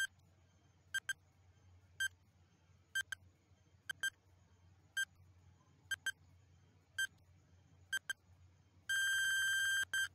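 Countdown timer ticking once a second, each tick a quick double click, then an electronic alarm ringing for about a second as it reaches zero near the end.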